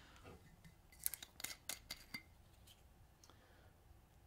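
Glass liquor bottles being handled on a tabletop: faint clicks and clinks, with a quick run of sharp clicks about a second in and two more later.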